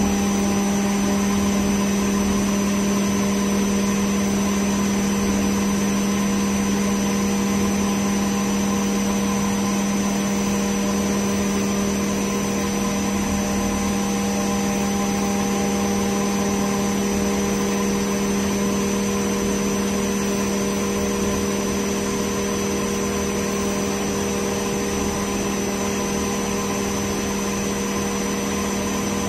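Multicam 5000 Series CNC router spindle running steadily while milling 3/4-inch aluminum plate with a 1/2-inch spiral O-flute bit. It makes an even hum with fainter higher whining tones that do not change.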